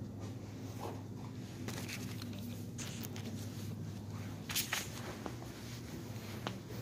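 Cloth face mask being handled and adjusted right at the phone's microphone: fabric rustling and scattered handling clicks, a few sharper ones a little past the middle, over a steady low electrical hum.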